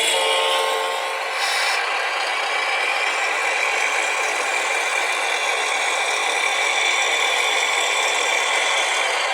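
Small electric motors and gears of radio-controlled model vehicles whirring and rattling steadily, with a faint high whine.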